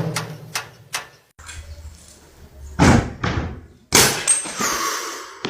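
A series of knocks and thuds, with two louder impacts about three and four seconds in.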